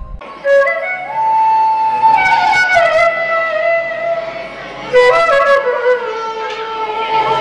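Carnatic music for a classical dance: a flute plays a slow, ornamented melody of held notes, with a few percussive strokes.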